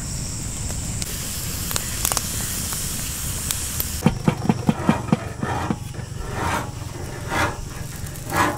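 Wood fire of burning logs giving a steady hiss with a few sharp crackles. About four seconds in the hiss stops and a quick run of about six knocks follows, then quieter scattered handling sounds.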